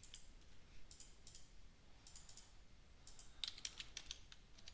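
Faint clicks of a computer keyboard and mouse, coming in short clusters about once a second.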